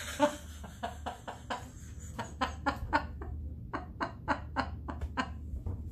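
A woman laughing uncontrollably in a long run of short pulses, about three a second, with no words.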